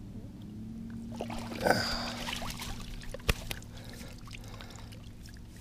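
Water splashing and trickling as a trout is landed in a landing net, loudest about two seconds in, followed by a single sharp knock. A steady low drone runs underneath.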